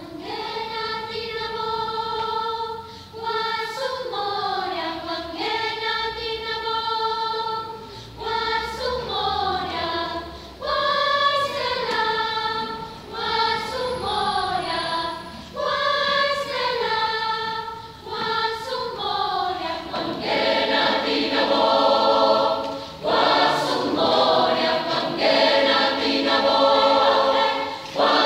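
Mixed choir singing a South African song in sung phrases of about two seconds each. The opening phrases carry a single melody line, and about twenty seconds in the choir opens out into full harmony.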